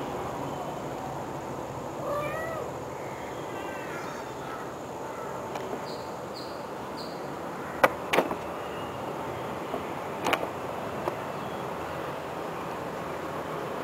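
Cats meowing, a run of short calls between about two and four seconds in, followed later by a few sharp knocks.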